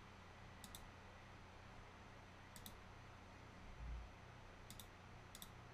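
Faint computer mouse clicks: two quick double clicks, then two single clicks, over a low steady hum. A soft low thump comes about two-thirds of the way through.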